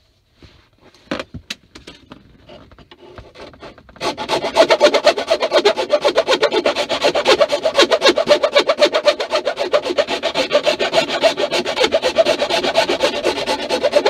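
Hand file rasping back and forth in quick, even strokes, enlarging a rectangular hole in a plastic dash trim panel. A few light scrapes come first, then steady filing starts about four seconds in.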